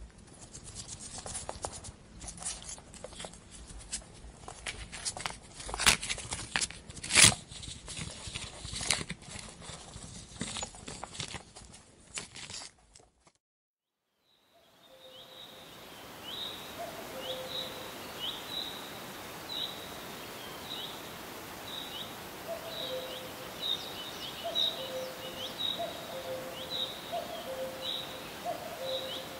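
A pet hedgehog moving about on a wooden floor: a run of small clicks and patters, with two louder knocks about six and seven seconds in. After a short silence comes an outdoor background hiss with short high chirps repeating about once or twice a second and a low two-note call repeating.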